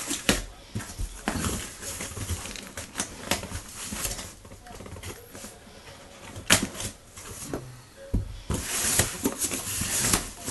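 Cardboard shipping box being opened by hand: packing tape is pulled away and the flaps are folded back, with rustling, scraping and scattered sharp clicks. The loudest is a single snap about six and a half seconds in, and the rustling grows denser over the last two seconds.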